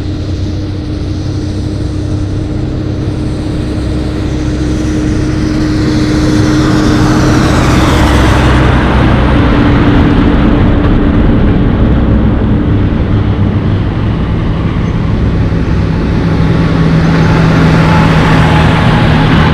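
Heavy diesel haul trucks towing double dump trailers driving past close on a dirt road, one after another: engine drone and tyre rumble build up, with the engine note falling as the first truck goes by around halfway. The second loud pass-by near the end is a Mercedes-Benz tractor unit pulling two dump trailers.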